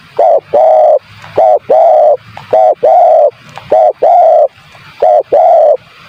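Spotted dove (tekukur) cooing, about five phrases in a row, each a short note followed by a longer held coo. It is a loud recorded call of the kind played as a lure to draw spotted doves in.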